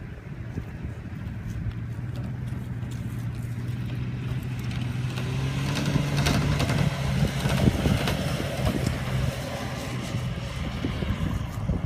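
Engine of a compact SUV, a Chevrolet S-10 Blazer type, running steadily and then rising in pitch and getting louder about halfway through as it pulls hard up a loose sandy hill, with the noise of tyres churning sand.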